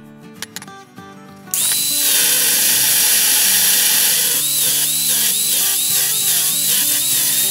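Angle grinder starting up about a second and a half in and running at full speed, then grinding the end of a steel pipe, its whine dipping and recovering two or three times a second as the disc bites. Background music plays underneath.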